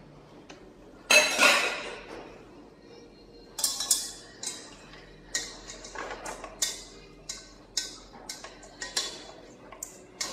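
A loud metal clank on a stainless steel cooking pot about a second in, then a utensil scraping and clinking against the pot about every half second as chicken pieces are stirred in it over high heat.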